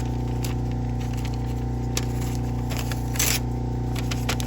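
Electric motor of a knife-sharpening machine running steadily, with a few short scrapes or ticks over it, the loudest a little past three seconds in.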